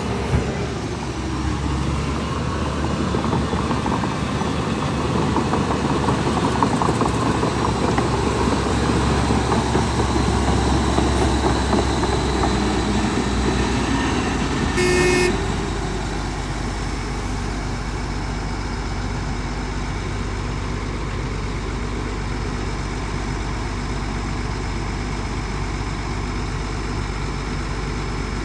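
Heavy diesel machinery engine running, louder through the first half. About halfway through there is a short horn toot, after which the engine settles to a steady, lower run.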